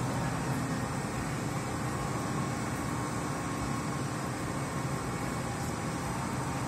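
Steady low rumble of vehicle engines, even and unbroken, with no single event standing out.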